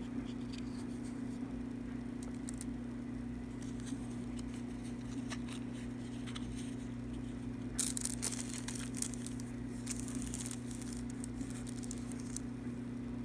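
Steady low electrical-sounding hum, with scattered clicks and crackles that bunch up about two-thirds of the way in.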